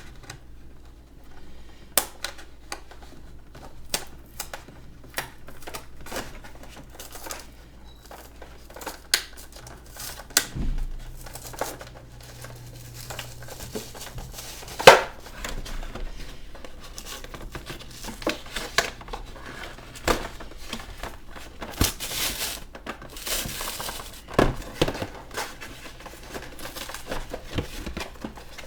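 Action figure packaging being opened by hand: plastic and cardboard crinkling and tearing, with many sharp clicks and taps, the loudest snap about halfway through.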